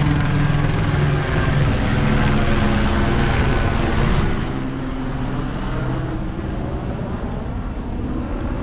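Helicopter overhead: a steady rotor and engine drone, louder for the first four seconds or so, then easing off.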